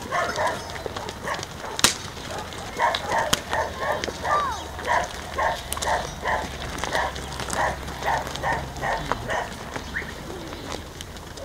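A dog barking over and over, about two barks a second for several seconds. A single sharp click comes about two seconds in.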